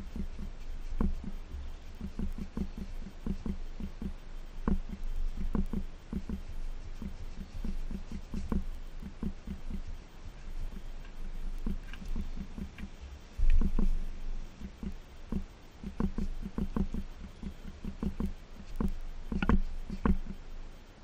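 A gloved hand scrubbing a bike's metal exhaust header pipes, in runs of short rubbing strokes, several a second, with brief pauses. A single louder knock comes about halfway through.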